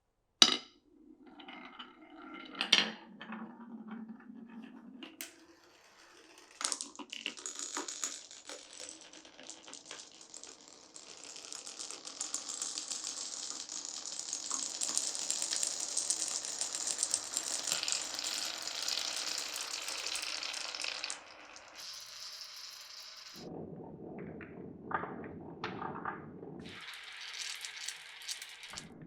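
Marbles rolling and clattering down a marble run of wooden tracks and pipes. A sharp click comes at the start. A long steady rattling rush fills the middle, and a lower rumble follows near the end.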